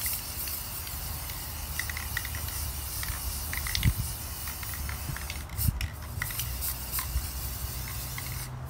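Rust-Oleum Mirror Effect aerosol spray can hissing steadily as a thin coat goes onto the inside of an acrylic dome. The spray breaks briefly about five and a half seconds in and stops near the end, over a low rumble.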